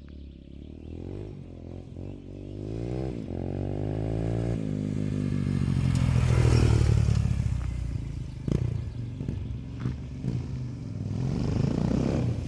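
Yamaha XT125's single-cylinder four-stroke engine with a fully open exhaust, accelerating hard. Its pitch climbs in about three rises, one per gear, through the first few seconds. The sound is loudest about six seconds in, eases off, and builds again near the end.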